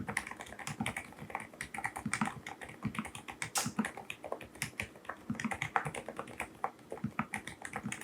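Continuous fast typing on a mechanical keyboard with silent switches: an unbroken run of soft, short keystrokes, many a second.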